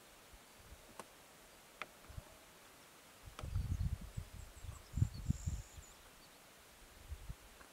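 Quiet outdoor ambience with low rumbling thumps on the microphone for about three seconds in the middle, and faint, very high, thin peeps during them.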